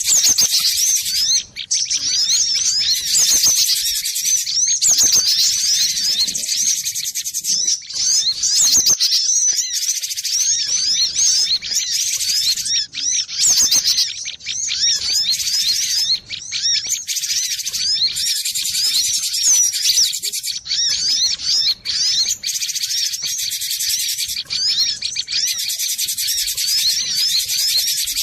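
Cinereous tit (gelatik batu) singing: rapid, high-pitched chirping and whistled notes repeated densely without a break.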